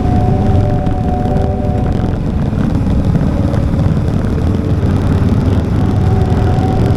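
Motorcycle riding with the engine running steadily, heard from on board with road and wind noise. A steady higher tone from the machine is present for the first couple of seconds, fades, and returns near the end.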